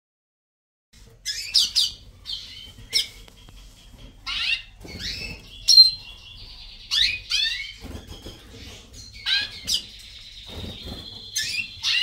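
Small caged finches calling and singing, starting about a second in: a string of quick, high chirps that sweep downward, mixed with a few held whistled notes.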